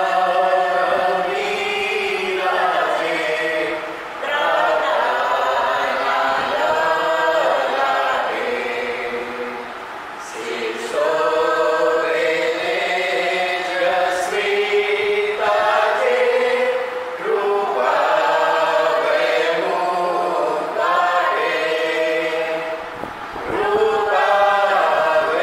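A small mixed group of men and women singing a Gujarati hymn together, unaccompanied, in long phrases with short breaks between lines.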